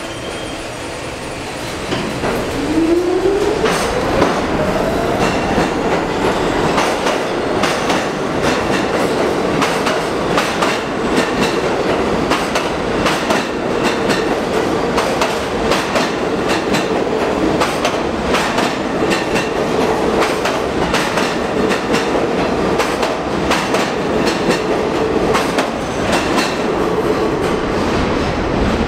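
R46 subway train pulling out of the station: its motors whine up in pitch from about two seconds in, then it runs on with a steady tone and rapid clickety-clack of wheels over rail joints as it leaves.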